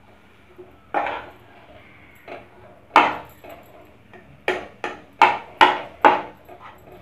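Slotted metal spatula knocking and scraping against a kadai while mashing boiled potatoes into a spiced onion mixture. The knocks are irregular, a few at first, then coming faster in a cluster over the last couple of seconds.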